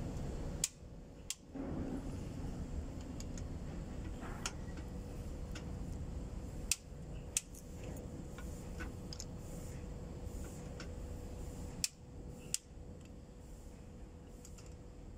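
A handful of sharp, separate metallic clicks from a long-handled socket wrench working the cylinder head bolts of a Mercedes-Benz Actros truck engine, over a steady low background noise.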